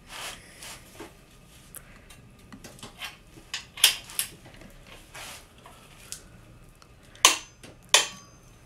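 Click-type torque wrench tightening main bearing cap nuts to 63 ft-lb. Short, sharp metallic clicks with a brief ring sound as the wrench breaks at its set torque: a pair about four seconds in and a louder pair near the end, with fainter metal ticks between.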